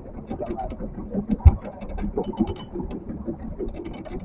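Small boat's outboard motor running at low speed, a steady low rumble mixed with wind noise and scattered light knocks, with one loud dull thump about a second and a half in.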